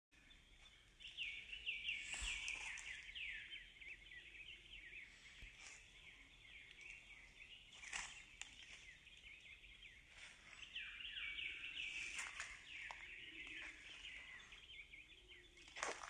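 Faint wild birds calling: a busy chorus of quick, high chirps that slide downward, in two spells, one starting about a second in and another from about ten seconds, with a few sharp clicks in between.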